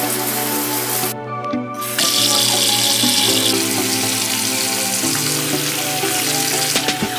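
Bathroom faucet running into a sink under background music, with shower spray heard first; the water hiss breaks off briefly a little after a second in, then the faucet stream runs on, louder.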